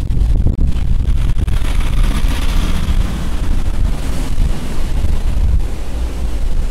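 Wind buffeting the microphone, a loud low rumble, over outdoor street noise. A hiss swells about two seconds in and fades by about four seconds.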